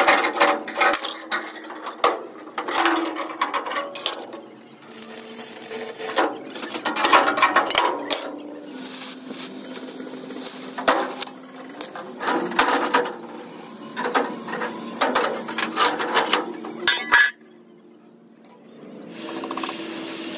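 Metalwork on the steel plates of a broken crane boom: repeated hammer blows, clanks and scraping on thick steel, in short snatches. It cuts off sharply about three-quarters of the way through and then picks up again more quietly.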